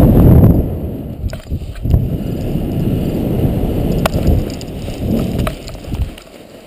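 Wind rushing over the microphone of a paraglider pilot coming in to land, cutting off about half a second in as the glider slows and touches down. Then rustling and a few light clicks and knocks as the pilot lands on the grass and the wing comes down.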